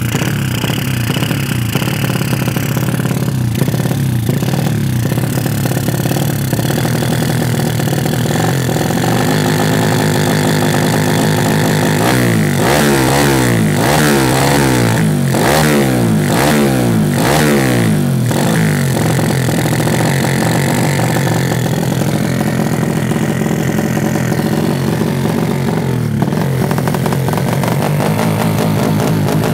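A modified Honda C70's tuned single-cylinder four-stroke engine (a Honda Grand engine with a Kharisma cylinder block, breathing through an open racing carburettor) running at a steady idle. About twelve seconds in the throttle is blipped five or six times in quick succession, the pitch rising and falling with each rev, before it settles back to idle.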